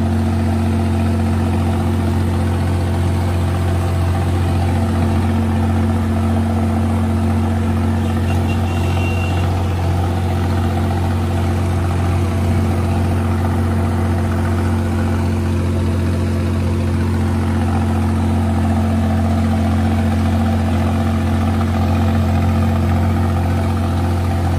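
Massey Ferguson tractor's diesel engine running at a steady, unchanging pitch while the tractor drives along the road.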